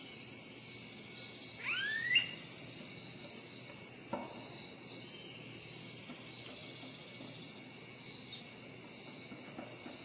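Steady high-pitched chorus of insects, with a loud rising bird call in two overlapping sweeps about two seconds in, and a single sharp knock about four seconds in.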